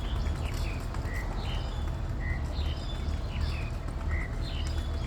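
Birds chirping in short, repeated calls, one short note coming back about once a second, over a steady low rumble.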